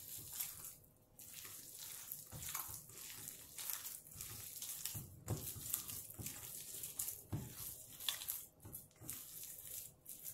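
A hand kneading wet minced beef and spice paste in a stainless steel bowl: irregular wet squishing and squelching, with the occasional scrape of fingers against the bowl.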